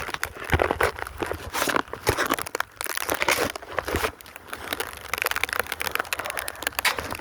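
Snow being swept and scraped off a table by hand: a run of irregular crunching, brushing strokes.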